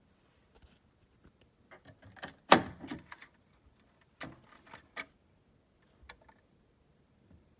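Handling noise: scattered clicks and knocks, the loudest a sharp knock about two and a half seconds in, with a few more clicks around four to five seconds and again near six seconds.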